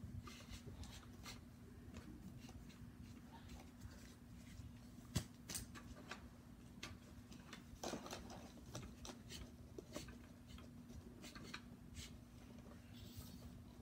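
Faint handling noise of airsoft gear and packaging: scattered small clicks, taps and rustles, with one sharp click about five seconds in. A steady low hum runs underneath.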